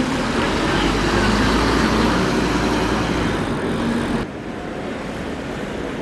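Double-decker bus passing close by, its engine and tyres running loud and steady. About four seconds in the sound cuts off abruptly to quieter street traffic noise.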